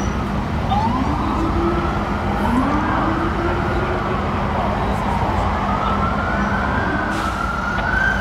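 Emergency vehicle sirens wailing: slow rising and falling glides, with more than one siren overlapping, over a steady low engine rumble.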